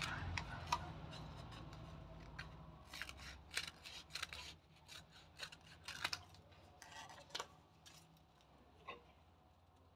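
Scissors snipping through thin paper, trimming the rim of a paper cone in a series of short cuts, most of them between about three and seven and a half seconds in. A low hum underneath fades away over the first few seconds.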